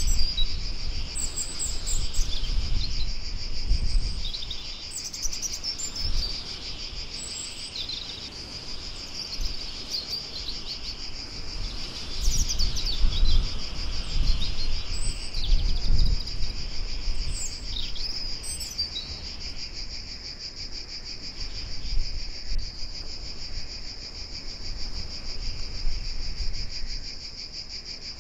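A steady chorus of crickets trilling, with birds chirping now and then through the first two-thirds, over a low rumble that swells at times.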